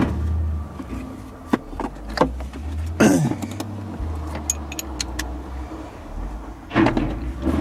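Clicks, clinks and a short scrape of hand tools and metal and plastic parts being worked on a car door, one louder click with a brief sliding scrape about three seconds in and a few more near the end, over a low steady rumble.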